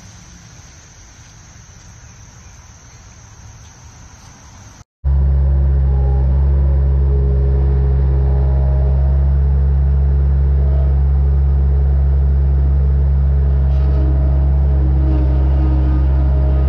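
Bobcat skid-steer loader's engine running steadily at a constant speed, heard close up from the operator's cab. Before it starts, about the first five seconds hold quieter outdoor ambience with a steady high insect-like buzz.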